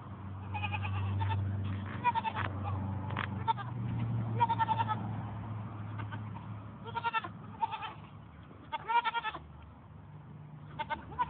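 Goats bleating: about seven short, high-pitched, wavering bleats scattered through, some in quick pairs.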